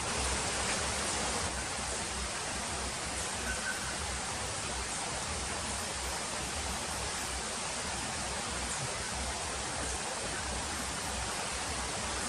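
A river's flowing water making a steady, unbroken rush.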